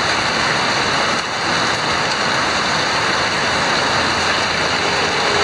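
Heavy rain, with runoff pouring off a roof edge and splashing down: a steady, dense hiss of falling water.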